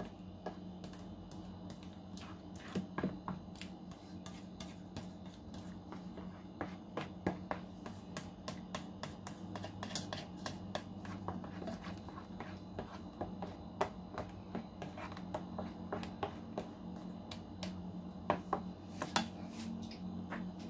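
Cheesecake batter being stirred by hand in a metal mixing bowl: a whisk and spatula click and scrape irregularly against the bowl, with a few louder knocks. A steady low hum runs underneath.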